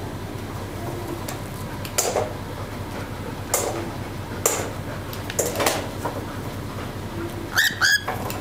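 Sharp metallic clicks of a dog-training clicker, single clicks a second or so apart, then a louder ringing double click near the end.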